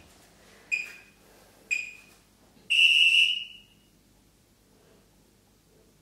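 Electronic interval timer beeping a countdown: two short high beeps a second apart, then one longer beep, marking the start of the next timed interval.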